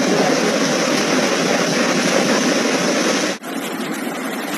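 Floodwater rushing down a street in a loud, steady torrent. About three seconds in it cuts off suddenly and gives way to a slightly quieter rushing noise.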